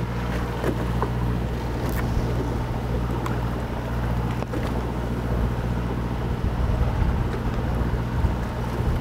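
Fishing boat's engine running with a steady low hum, with wind and water noise over it.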